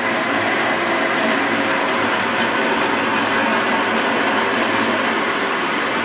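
Weiss WBL290F metal lathe running steadily, driven by its 2 hp motor, with the power cross-slide feed engaged.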